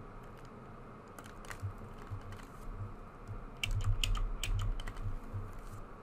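Computer keyboard keys clicking in irregular taps, sparse at first and busier from about three and a half seconds in, with soft low thuds under them.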